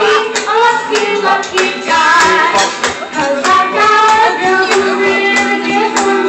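A boy singing a 1950s classic into a handheld microphone, holding and sliding between notes over accompaniment with a steady beat.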